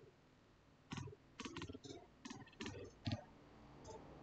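Pen writing on paper: a faint string of short scratches and clicks as a line of words is written out.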